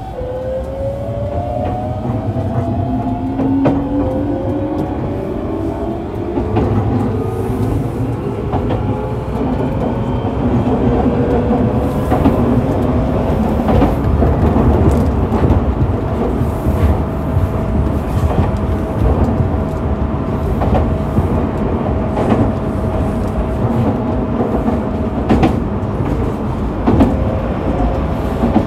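Tokyu 1000 series' Toyo GTO VVVF inverter and traction motors heard from inside the motor car as the train pulls away. Several whining tones rise in pitch for the first dozen seconds, then settle into one steady tone, over a steady rumble of wheels on rail with occasional sharp clicks.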